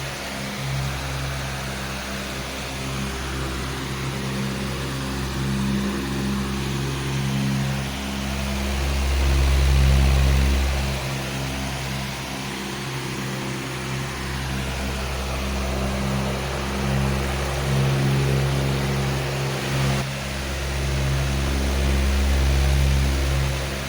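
Powerful electric fan running: a steady rush of air over a motor hum, the low hum swelling and easing a few times.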